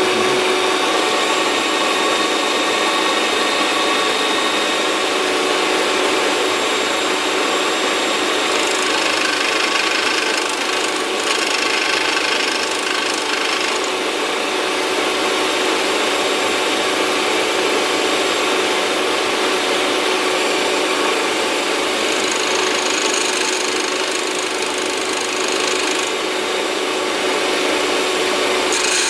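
Silverline 95 W electric drill bit sharpener running with a steady whine while a high-speed steel drill bit is ground against its small grinding wheel, a rasping grinding hiss that shifts in level a few times as the bit is worked.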